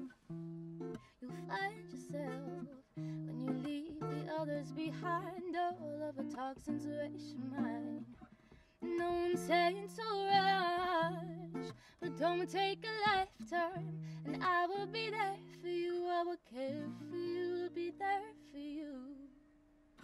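A woman singing with acoustic guitar accompaniment inside a car, her voice holding and bending long notes over the guitar.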